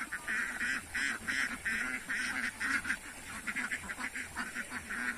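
A large flock of domestic ducks quacking, a dense chorus of short overlapping calls several times a second.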